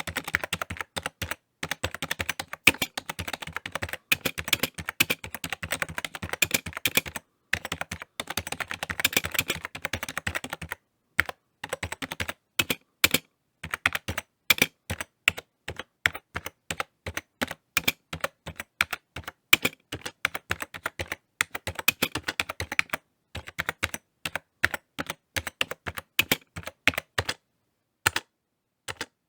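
Computer keyboard typing: bursts of fast key clicks broken by short pauses, dense in the first ten seconds or so, then sparser, more spaced keystrokes.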